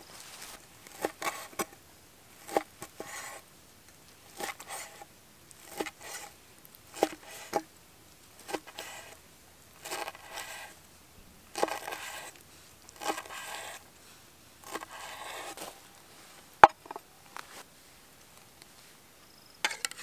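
A cleaver slicing grilled beef steak into strips on a wooden board: a series of short cuts, roughly one a second, each ending in a knock of the blade on the wood. One sharper, louder knock comes about 17 seconds in.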